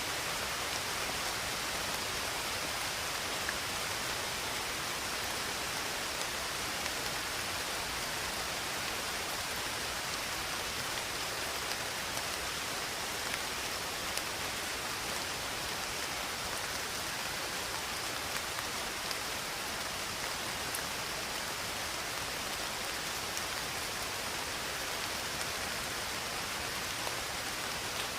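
Steady rain falling, an even hiss with small drop ticks scattered through it.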